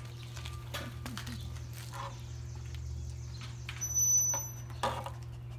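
Small wood fire in a homemade wood stove crackling, with scattered faint ticks. A steady high whistle-like tone sounds for about a second a little past the middle.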